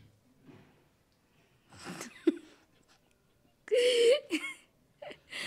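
A person's voice in a few short bursts, the loudest about four seconds in with a brief held, wavering note.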